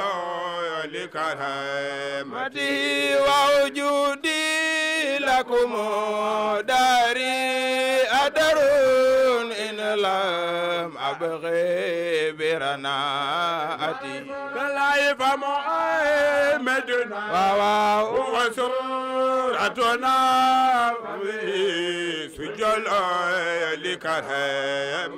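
Men chanting a devotional religious song into microphones, amplified over a sound system, in long rising and falling phrases with short breaks between them.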